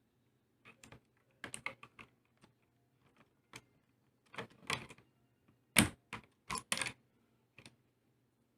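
Keys of an Armageddon MKA-3C mechanical keyboard being pressed: sharp clicks in irregular bursts, a few at a time, the loudest cluster a little past the middle.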